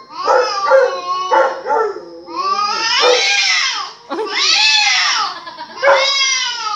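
A dog howling: a series of about five drawn-out, wavering calls that rise and fall in pitch, with short breaks between them. It is reacting to the sound of barking.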